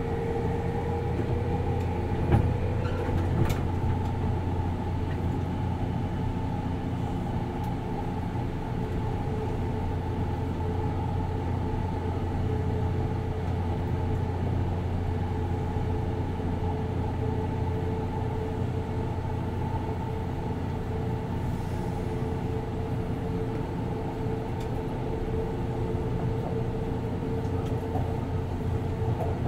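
Running sound inside a 189 series electric train's motor car at steady speed. Wheels rumble on the rail, with the steady hum and whine of its MT54 traction motors and gearing. There is a single sharp knock about two seconds in.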